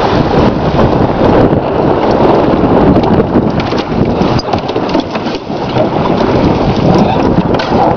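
Loud wind buffeting the microphone on a small sailboat under way at speed, with water rushing and splashing against the hull.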